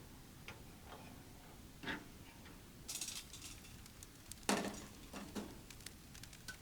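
Scattered light clicks and knocks, with a rustle about three seconds in and a louder knock about four and a half seconds in.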